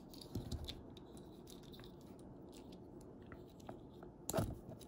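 Small plastic transforming Optimus Prime toy being twisted and folded by hand: faint, scattered clicks and ticks of its parts moving, with a sharper click about four and a half seconds in.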